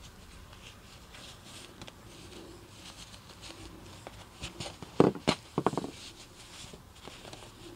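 Faint rustling of yarn and a crochet hook being worked in slip stitches, with a few soft knocks about five seconds in.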